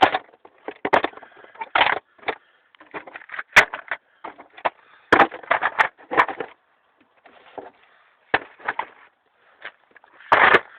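Metal hand tools and sockets clanking and rattling as they are handled and put away, a run of irregular knocks with a few sharp clicks.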